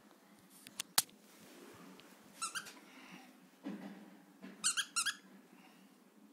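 Squeaker in a plush squirrel dog toy squeaking: two short squeaks about two and a half seconds in, then three quick squeaks near the end. A sharp click about a second in is the loudest single sound.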